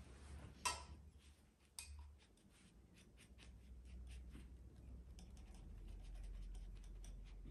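Faint scratching and light ticking of a knife blade being drawn through layered baklava in a round enamel baking pan, with a couple of sharper ticks in the first two seconds.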